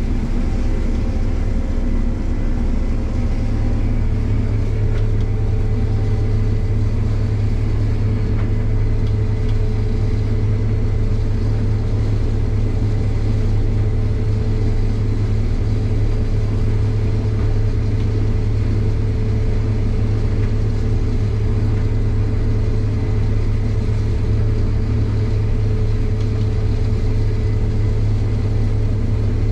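Combine harvester running steadily, a constant low engine drone with a steady higher hum over it. It is held at only about 50 to 60% engine load, because the crop won't feed and blocks up at more.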